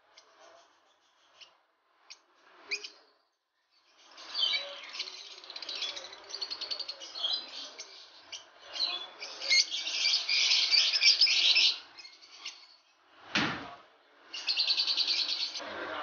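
Lovebirds chattering in their cages, many shrill rapid chirps overlapping into a loud dense racket. It comes in swells, with a single sudden sharp sound shortly before the last burst of chatter.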